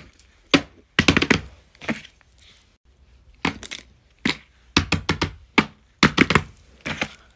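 Plastic fidget toys being set down and handled on a paper sheet: a string of sharp clacks and taps, some coming in quick runs of two or three.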